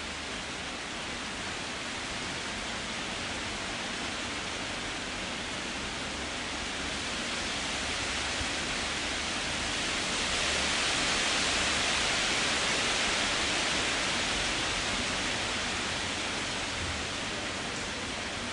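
Wind blowing through trees, a steady rushing that swells louder about ten seconds in and then eases off again.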